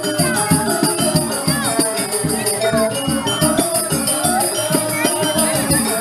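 Balinese joged bumbung bamboo gamelan playing a fast, busy rhythm: rapid ringing strikes on bamboo xylophones with a steady metallic rattle over them.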